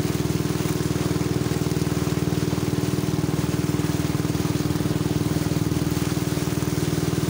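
Engine of the motorboat towing a banana boat, running steadily at speed: an even drone with a fast regular pulse, over a rush of wind and water.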